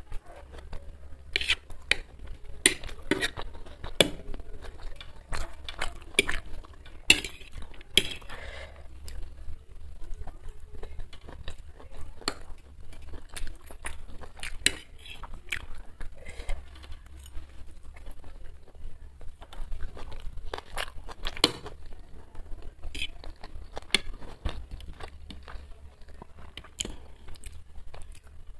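Metal fork clinking and scraping against a ceramic plate while twirling chow mein, in many irregular sharp clicks, with chewing and mouth sounds between them.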